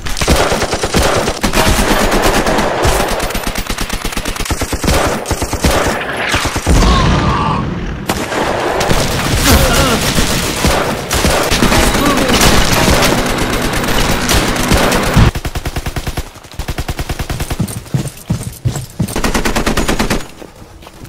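Battle sound effects: sustained rapid machine-gun and rifle fire, the shots coming thick and fast, then thinning to sparser bursts near the end.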